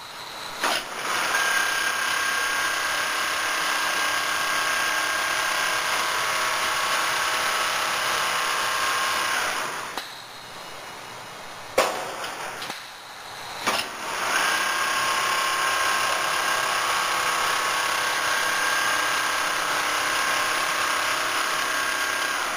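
Double-needle quilting machine running and stitching with a steady mechanical whine. About ten seconds in it stops for a few seconds, with two sharp clicks, then starts up and runs again.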